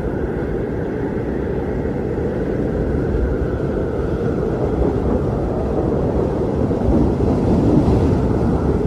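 Strong wind blowing steadily with a deep rumble, swelling a little in gusts in the second half.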